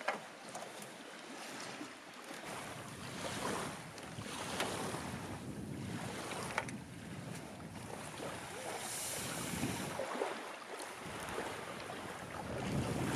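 Wind blowing over the microphone with lake water lapping, and a few short knocks.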